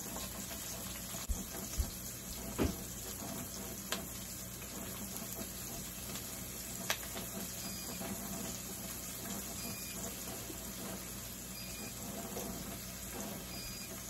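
Chopped onion and garlic sizzling in a little oil in a pan on a gas burner, a steady hiss, with a few light clicks in the first several seconds.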